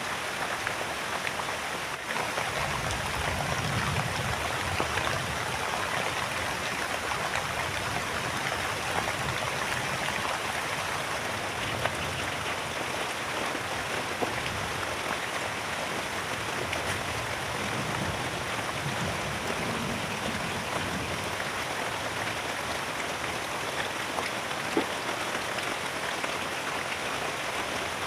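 Heavy rain falling steadily, with a few separate drips ticking over it. A low rumble swells and fades twice, about two seconds in and again past the middle.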